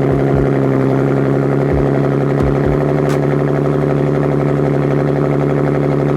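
Nissan 370Z's 3.7-litre V6 idling steadily through a Tomei aftermarket exhaust, a loud, even, deep drone. A few brief low thumps come in the first three seconds.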